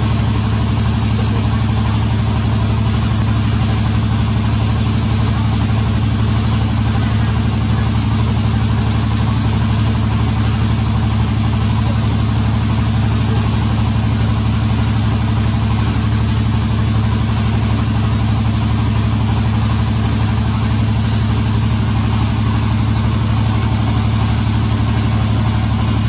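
A steady low mechanical drone, like an idling engine, with a constant hiss over it; it does not change.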